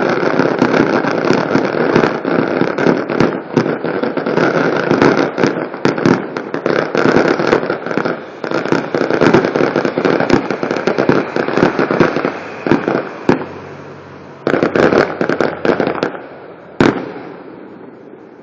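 Fireworks going off in a dense, continuous barrage of bangs and crackling. The barrage thins out in the last few seconds, with one last sharp bang near the end.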